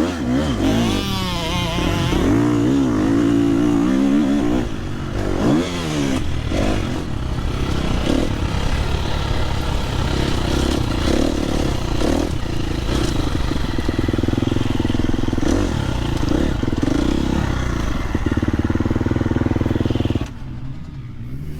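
Motocross bike engine revving and changing through the gears, its pitch repeatedly climbing and falling. The sound drops off sharply near the end.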